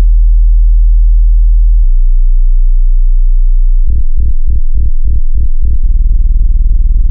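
Loud, very deep synthesized bass tones like a sine wave: a steady low hum that drops lower about two seconds in, then pulses about three to four times a second for a couple of seconds before holding steady again.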